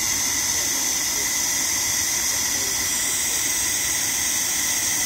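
Steady, even hiss of air being blown by a machine, strongest in the high range and unchanging throughout.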